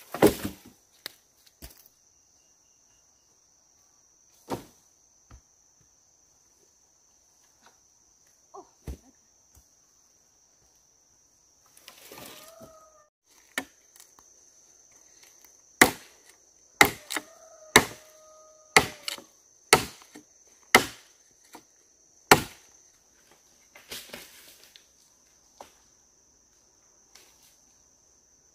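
A run of seven sharp chopping strikes, about one a second, in the second half, over a steady high-pitched insect drone; a few scattered knocks and rustles come earlier.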